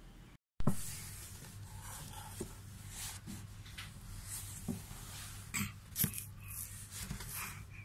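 Scattered light knocks and rubbing close to the microphone, about a dozen in all, the loudest just after an abrupt cut about half a second in, over a steady low hum.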